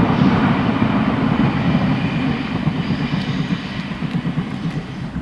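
Steady low rumble of a passing vehicle, slowly fading.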